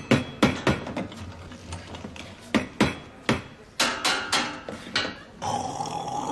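A series of sharp knocks and bangs as someone works at an espresso machine, quick at first, then slowing to one every half second or so. About five and a half seconds in, the knocking stops and a steady hiss of steam starts and grows.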